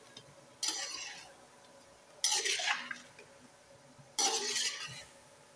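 Slotted metal spoon scraping and tossing chopped onions and meat pieces around a metal karahi, three strokes about two seconds apart.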